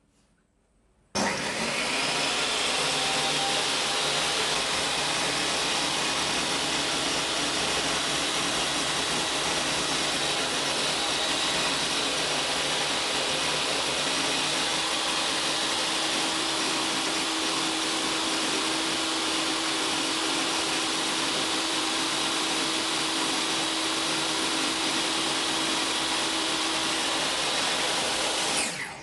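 Total TS5152542 10-inch table saw's brushed motor and blade starting suddenly about a second in, spinning up and then running steadily with no load, drawing about 700 watts. A steady tone joins about halfway through, and near the end the saw is switched off and dies away within about a second.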